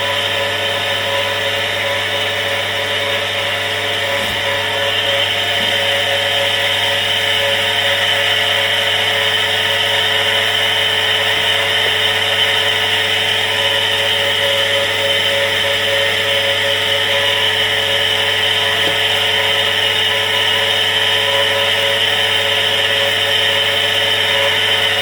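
Household electric water pump running steadily, a constant loud motor hum and whine with a hiss over it.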